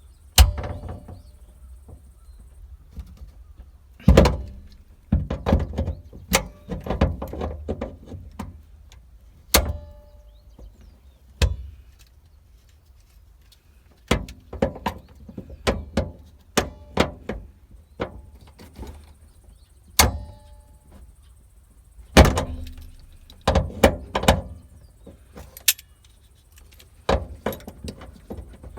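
Irregular series of sharp knocks and clicks in clusters with quiet gaps between; a few of the knocks leave a short ringing tone.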